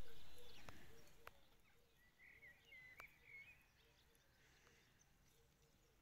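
Faint bird song: a short run of high warbling chirps about two to three and a half seconds in, over otherwise near-silent open air. Before it, a rush of noise fades away over the first second or so, broken by a few sharp clicks.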